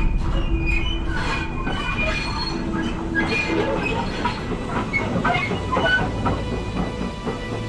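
Railway carriage running along the track: a steady low rumble with scattered short, high metallic squeals from the wheels.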